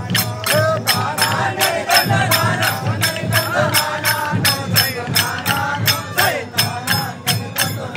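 Many wooden sticks struck together in a group stick dance, clacking in a steady rhythm of about four strikes a second, with voices chanting along.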